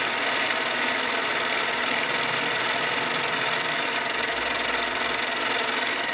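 Mini lathe running steadily with an aluminium workpiece spinning in its chuck, while a 5000-grit foam sanding pad is pressed against it to polish the surface.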